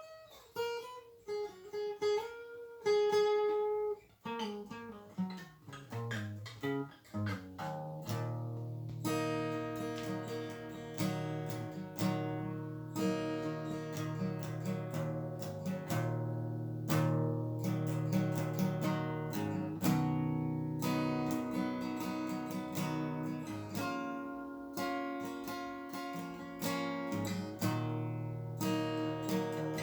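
Guitar playing, solo: a few seconds of single picked notes running down a line, then repeated strummed chords with ringing bass notes from about eight seconds in.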